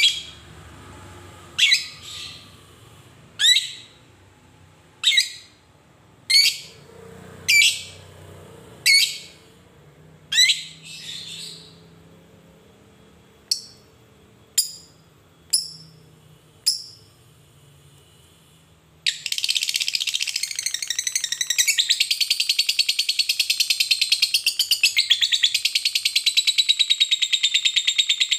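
Fischer's lovebird calling: single sharp high chirps every second or two, then about two-thirds of the way in a long unbroken rapid chatter, the 'ngekek' song of a lovebird kept for fighter-style singing contests.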